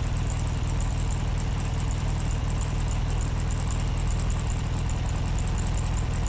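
A steady, unchanging low hum, with a faint high-pitched whine above it.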